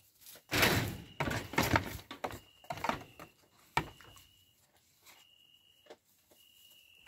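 A young goat kid pushing and nuzzling against a hand and shifting in straw bedding: a series of rustling scuffs, with a sharp knock nearly four seconds in.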